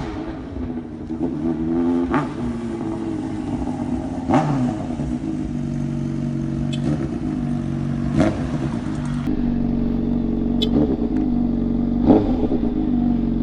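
Motorcycle engine idling steadily, with a few quick throttle blips that rise and fall back about two, four, eight and twelve seconds in.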